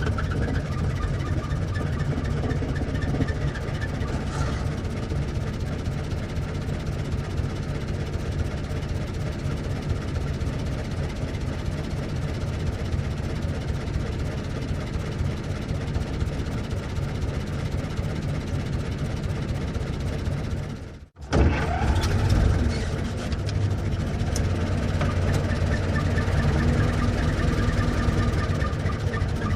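Old car's engine running steadily with a low drone. About 21 seconds in the sound drops out abruptly for a split second, then resumes slightly louder.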